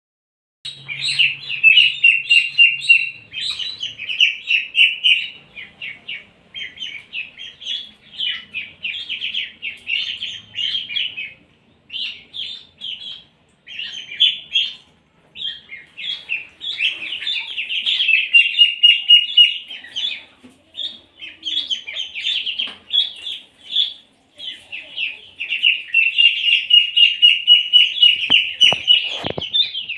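A group of ducklings peeping nonstop, many rapid high calls overlapping, with a few short lulls. A few sharp knocks near the end.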